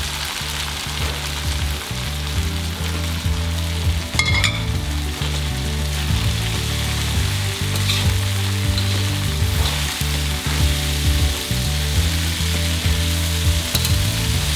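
Chopped vegetables with dried shrimp and diced tofu sizzling as they are stir-fried in a stainless-steel wok. A spatula scrapes and turns the food, with a few sharp clinks against the pan.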